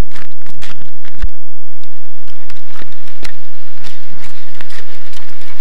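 Footsteps crunching in snow as a handheld camcorder is carried, a loud run of irregular crunches about two to three a second.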